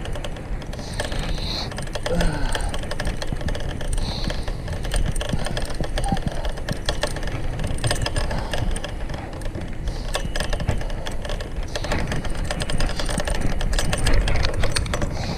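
Riding noise from a fixed-gear bicycle: a steady low rumble of wind and road on the microphone, with a dense patter of small clicks and rattles from the bike.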